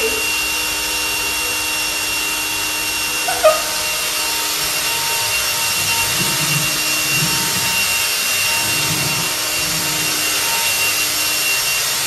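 Robot vacuum cleaner running with a steady whirring hiss and a high motor whine. A brief sharp sound about three and a half seconds in, and a few soft low rumbles between about six and ten seconds in.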